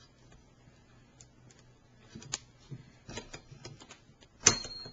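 Model Stirling engine's flywheel and linkage being spun by hand while it is coaxed into starting: irregular light metallic clicks and rattles. Near the end comes one sharp, much louder metal click that rings briefly.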